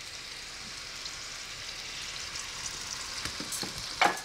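Ground beef and diced red peppers sizzling steadily in a skillet, with a fine crackle, while a wooden spoon stirs them. A few soft knocks and one sharp click sound near the end.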